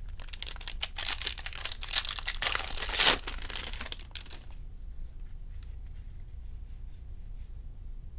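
Foil wrapper of a 2020 Topps Series 2 jumbo pack being torn open and crinkled for about four seconds, loudest around three seconds in. After that come faint ticks of the stack of baseball cards being handled and sorted.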